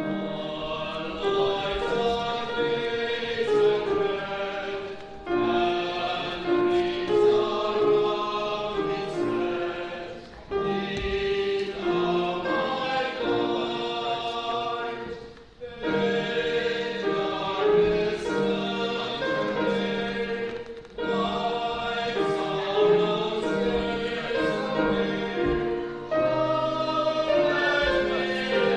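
A choir singing a hymn in phrases of about five seconds, with short breaks between phrases.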